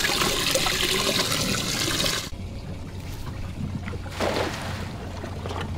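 Water pouring and splashing, cutting off suddenly about two seconds in, then a shorter splash about four seconds in, over a steady low hum.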